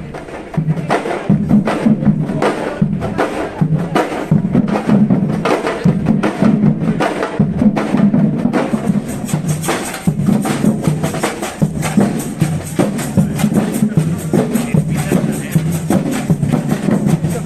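Live music driven by percussion: drums and hand percussion playing a quick, steady rhythm over a strong low bass part.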